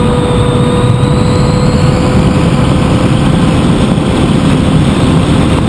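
A Hawk Sky foam RC plane's electric motor and propeller whine at a steady pitch, heard from an onboard camera, with heavy wind rush over the microphone.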